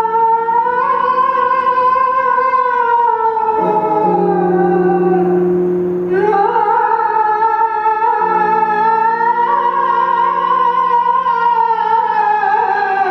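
Vocal sound poetry into a microphone cupped in both hands: a long, high, wavering sung tone that slowly rises and falls in pitch. A lower steady drone joins it twice.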